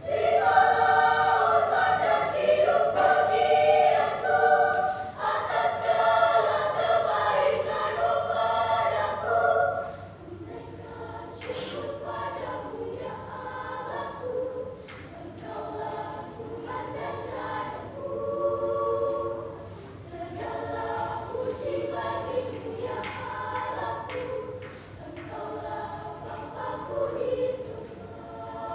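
Children's choir singing, loud for about the first ten seconds and then much softer for the rest.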